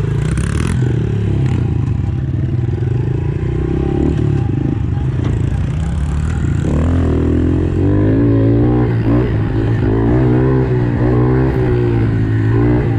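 Dirt bike engine running hard, revving up and down as the rider works the throttle; from about halfway on the revs rise and fall again and again.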